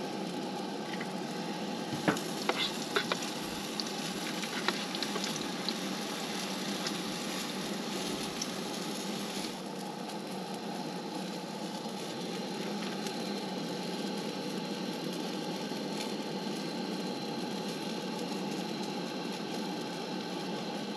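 Pancakes sizzling in a frying pan on a camp stove, with a few sharp clicks of a spatula against the pan about two to three seconds in.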